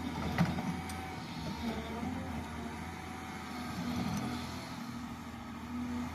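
Diesel engine of a construction machine running steadily, with a sharp knock about half a second in and a few lighter clanks.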